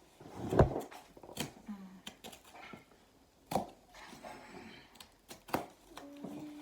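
Four sharp knocks with lighter clicks and rustles between them, from a parcel and its contents being handled and opened on a surface; the first knock, about half a second in, is the loudest.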